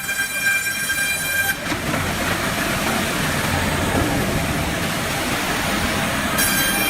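Sawmill circular saw blade spinning at speed with a high steady whine, then cutting through a wooden board with a loud, rough rasping noise from about a second and a half in, before the whine returns free-running near the end.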